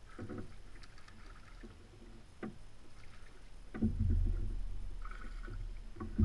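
A few light clicks of fishing reel and tackle, then, from about four seconds in, a steady low rumble of water and boat noise on a bass boat's bow while a hooked bass is fought on the rod.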